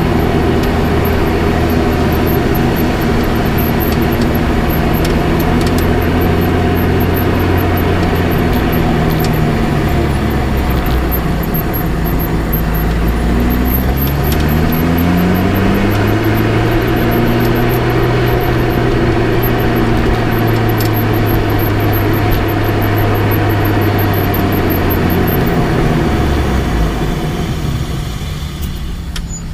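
Lotus Elise on the move, heard from the front left suspension: road and tyre noise over the engine's hum, which rises and falls with the revs, and a few faint clicks here and there, the suspension clicking the owner is trying to diagnose. Near the end the sound fades as the car slows.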